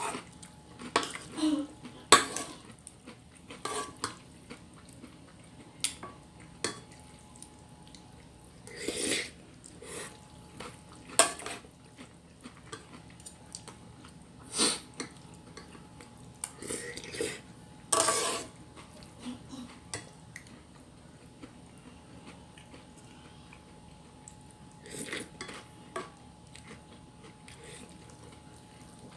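Eating utensils clinking and scraping against a dish in scattered short knocks and clatters during a meal, with a few longer noisy scrapes; they thin out near the end.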